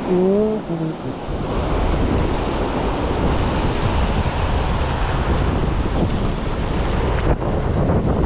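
Wind buffeting the microphone over steady waves washing in. The rumble of wind on the mic sets in about a second in.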